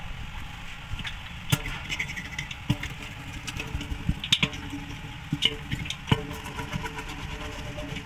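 Hands pressing and rubbing a rubber repair patch onto the inside of a truck tyre: scattered irregular knocks and clicks, the loudest about a second and a half, four seconds and six seconds in, over a steady low rumble.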